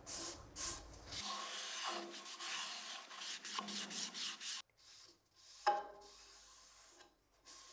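Hand-held cloth pad, wet with sanding sealer, rubbed in scratchy strokes over the face of a turned wooden platter. The rubbing stops about four and a half seconds in, followed by a single light knock a second later.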